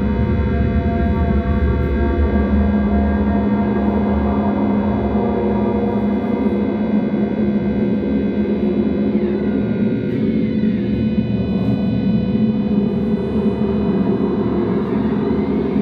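Live ambient electronic drone music: layered sustained tones from synths and electronics with an electric guitar. A strong low hum comes in about two seconds in, and sweeping pitch glides appear around ten seconds in and again near the end.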